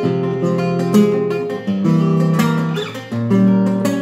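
Classical guitar played solo, plucked bass notes and chords in a milonga rhythm: an instrumental passage of a milonga.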